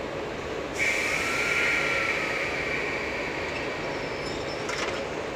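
About a second in, compressed air starts hissing from the standing 381 series electric train's underfloor equipment and goes on for about four seconds, typical of the air brakes being released before starting. It ends with a few sharp clicks, over a steady hum from the train's equipment.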